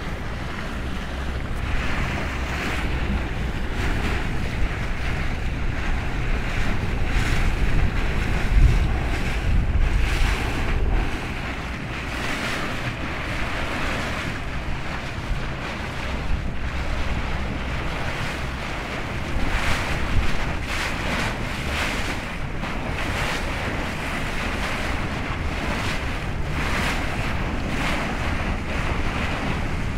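Wind buffeting the microphone over the steady wash of a choppy sea, with a stronger gust about nine seconds in.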